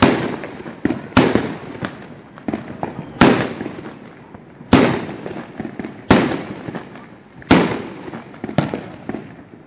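Mortar-type aerial firework shells bursting overhead: about seven sharp booms, one every second or two, each echoing away, with smaller pops in between.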